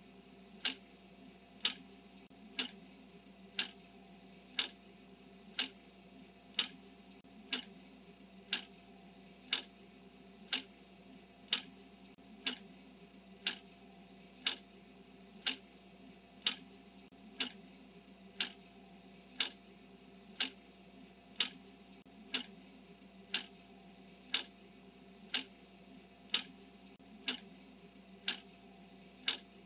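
Clock ticking steadily, one sharp tick each second in time with the countdown timer, over a faint steady hum.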